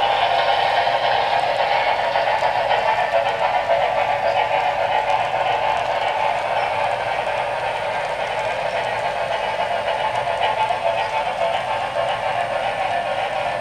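HO scale model freight cars rolling past on the track: a steady rumbling clatter of many small wheels on the rails, easing off slightly toward the end.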